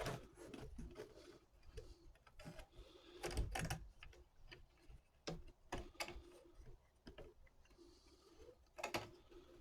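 Scattered light clicks and small metal knocks at irregular intervals, a few louder than the rest: a Hercules 20V compact bandsaw's blade and parts being handled while the blade is fitted around its wheels and guide bearings.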